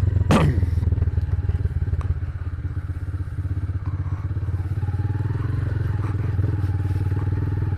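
Motorcycle engine running at low speed with a steady low drone while the road bike picks its way over a rough, unpaved trail section.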